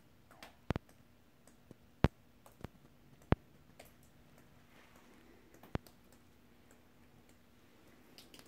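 Sharp clicks and small knocks at uneven intervals, the loudest about a second apart in the first few seconds, over a faint steady low hum.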